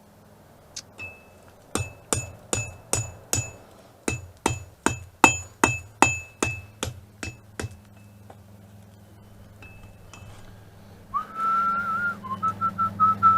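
Hand hammer striking hot mild steel on an anvil, about twenty quick blows with a bright metallic ring, as the bar is curved around the anvil horn. Near the end someone whistles a wavering tune.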